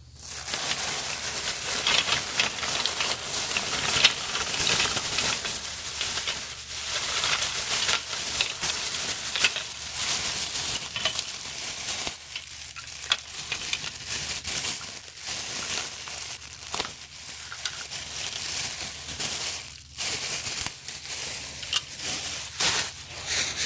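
Thin plastic shopping bag rustling and crinkling as it is handled and sunglasses with their hang-tags are pulled out, with a few brief pauses.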